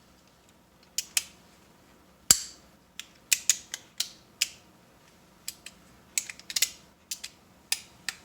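Small metal parts of a compressor pressure switch clicking and clacking as they are worked and pushed into place by hand: a string of sharp, irregular clicks, the loudest about two seconds in.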